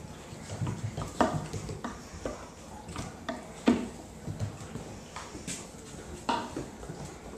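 Puppies playing on a tile floor: irregular scuffling and claw taps, with a few louder, short sharp sounds, three standing out at about one, three and a half, and six seconds in.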